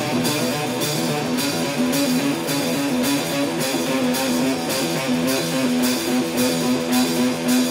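Background music: a guitar song with a steady beat, with no singing in this stretch.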